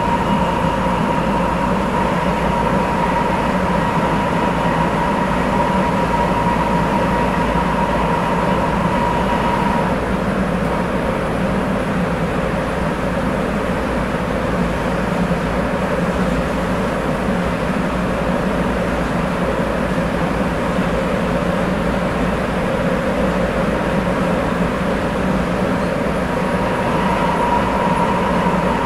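Sapporo Municipal Subway Tozai Line 8000 series rubber-tyred train running between stations, heard from inside the car: a steady running rumble. A high steady whine over it fades about a third of the way through and comes back near the end.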